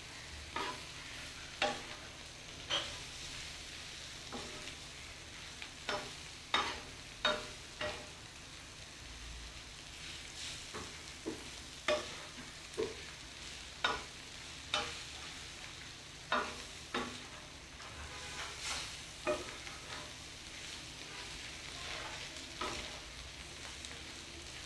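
Metal spatula scraping and clacking against a flat tawa griddle while diced liver is stirred and fried, over a steady sizzle. The clacks come irregularly, roughly one a second.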